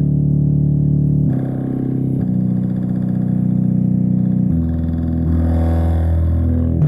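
FL Studio Mobile's SuperSaw synthesizer playing a slow progression of buzzy, sustained chords, changing chord about every one to two seconds.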